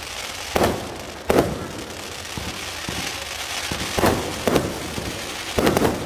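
Aerial fireworks display: a string of sharp bangs from bursting shells, about six, spaced unevenly and bunching toward the end, over a continuous crackling hiss.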